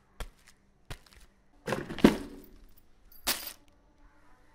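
Motorcycle keys on a ring jingling and clinking in a hand, with a few separate clicks, then a louder clatter about two seconds in and a sharp rattle about a second later as they are dropped into a plastic dustbin.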